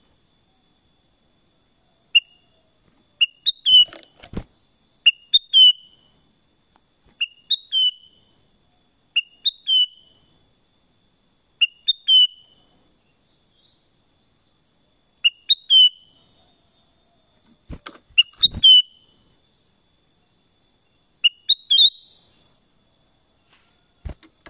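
Black-crested bulbul (kutilang emas) singing: a short, bright phrase of a few quick notes, repeated about every two seconds. A few dull knocks come twice among the phrases.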